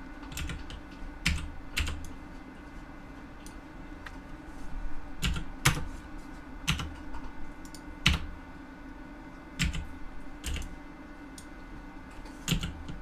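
Computer keyboard keys pressed one at a time at irregular intervals, a scattering of sharp clicks over a steady low hum.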